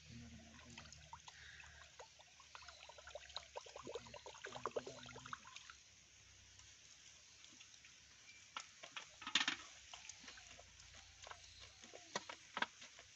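Wet squelching and small splashes of mud and water as a stick is worked into a muddy water-filled hole, with a few sharper knocks, the loudest about nine and a half seconds in.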